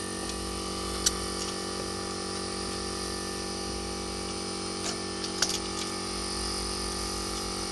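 A steady machine hum made of several fixed tones, with a few faint sharp clicks about a second in and again around five seconds in.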